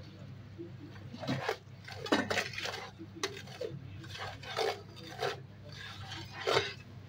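Metal slotted spatula scraping and stirring sugar in a nonstick frying pan, a run of irregular strokes about two a second, as the sugar dissolves into a syrup for coating.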